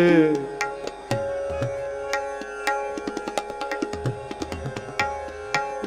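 Instrumental passage of Indian devotional music: tabla strokes keeping a steady rhythm under bowed string instruments holding sustained notes, between sung lines of the kirtan.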